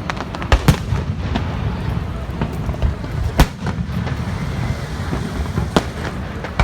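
Fireworks going off: a series of sharp bangs, the loudest about three and a half seconds in, over a continuous low rumble.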